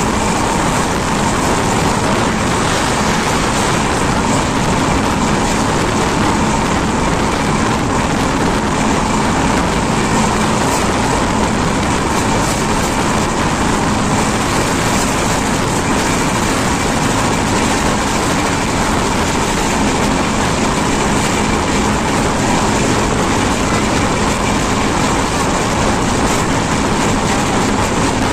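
Express passenger train running at speed, heard from the open doorway of a coach: a loud, steady din of wheels on rails and rushing air, with no let-up.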